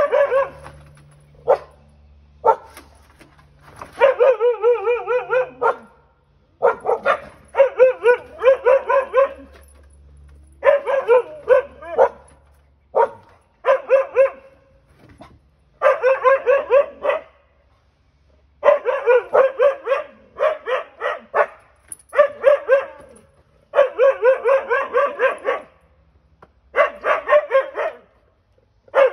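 Siberian huskies barking at a stray cat in rapid strings: about ten bursts of one to two seconds each, with short pauses between.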